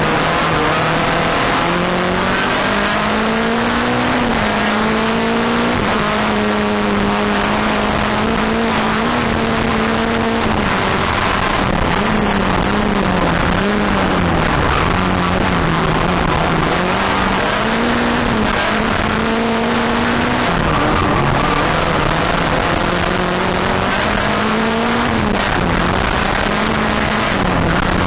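Skoda Fabia rallycross car's engine heard from inside the cockpit under full race load, its note holding, dropping and climbing again through gearchanges and corners, over a constant wash of tyre and road noise.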